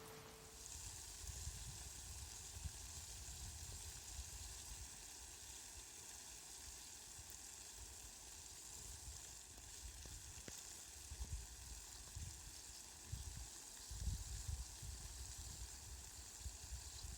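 Steady, faint hiss of falling rain, with a low rumble that comes and goes.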